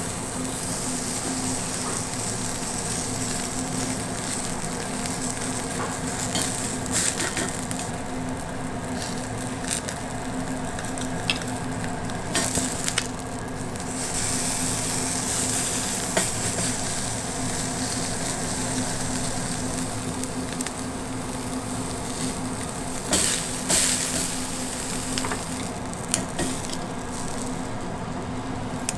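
Beef sizzling steadily on a hot cast-iron griddle plate, with a few sharp clicks scattered through.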